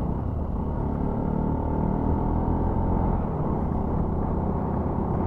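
Motorcycle engine running steadily while climbing. The rider notices it pulling weakly at high altitude.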